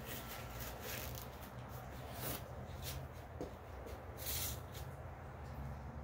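Disposable gloves being peeled off and pulled on: soft rubbery rustling with a few brief swishes, the longest about four seconds in, over a steady low hum.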